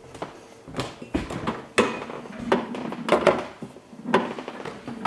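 Irregular knocks and clicks of a refrigerator door being pulled open and a small glass jar with a metal lid being set into the door shelf, with footsteps on a wooden floor.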